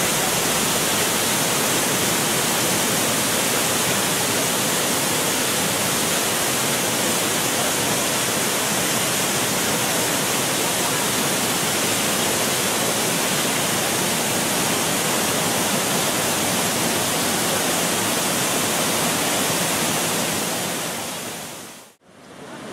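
Large waterfall: a steady, dense rush of falling water that fades out to silence near the end.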